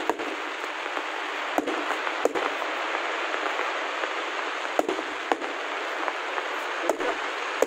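Fireworks display: sharp bangs of bursting shells every second or so, some in quick pairs, over a steady dense hiss.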